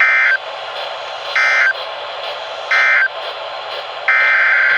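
Emergency Alert System end-of-message data tones over a weather radio's hissy background: three short, harsh digital data bursts a little over a second apart. About four seconds in, a longer burst of the same tone begins, the start of the next alert's SAME header.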